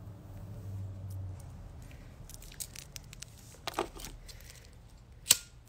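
Handling noise from a phone held close: scattered rustles and small taps, with one sharp click about five seconds in.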